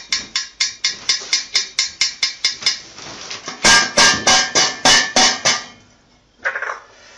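A ringneck parakeet rattling an enamel pot's metal lid with its beak. The lid clatters against the pot in quick ringing taps, about five a second, then in a louder, faster run of clattering about four seconds in, with a short rattle near the end.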